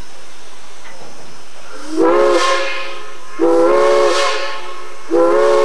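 Steam whistle of the Shay locomotive Feather River #3, blown in three blasts of about a second each. Each blast sounds several notes together and rises briefly in pitch as it starts. The third blast is still sounding at the end.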